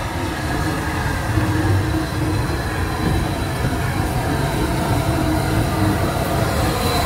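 Rebuilt Bulleid Battle of Britain class Pacific steam locomotive 34059 running slowly toward the listener: a steady low rumble with a hiss of steam and a thin high tone over it, growing a little louder as it nears.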